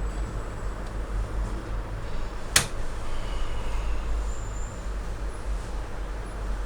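Laser printer parts being fitted back together by hand: a sharp snap about two and a half seconds in and another near the end, over a steady low hum.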